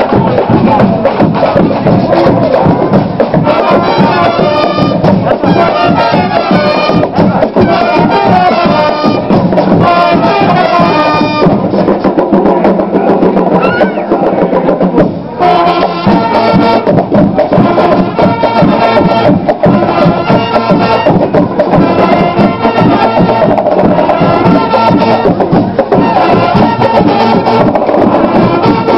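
Marching band playing loudly with drums and brass, including a sousaphone. The playing breaks off briefly about fifteen seconds in, then starts up again.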